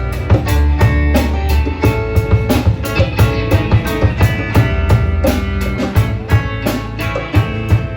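Live rock band playing an instrumental intro: electric guitars and bass over a steady drum-kit beat.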